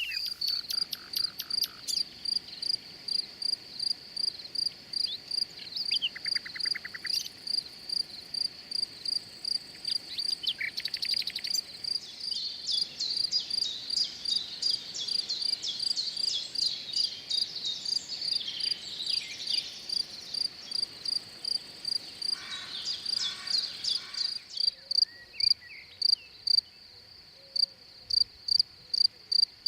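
A cricket chirping steadily, a high pulse repeating about twice a second, with birds trilling and chirping alongside it until near the end.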